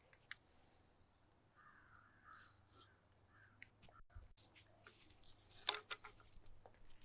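Near silence broken by faint handling noise of PVC pipe and fittings: light clicks and taps, loudest around six seconds in. A few faint harsh animal calls come around two seconds in.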